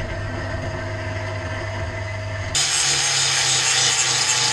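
Angle grinder running, then cutting into steel about two and a half seconds in, turning louder and harsher as it cuts a slot.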